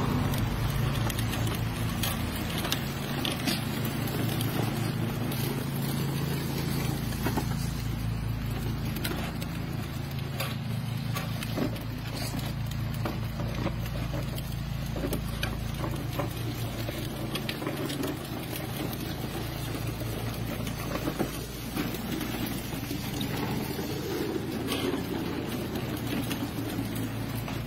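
Hard plastic wheels of a child's tricycle and a towed toy ride-on car rolling over asphalt, a steady rumble with occasional light ticks.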